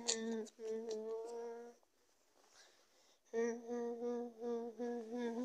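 A voice humming a tune on one repeated note, in two phrases with a pause of about a second and a half between them; the second phrase is broken into short, evenly repeated notes.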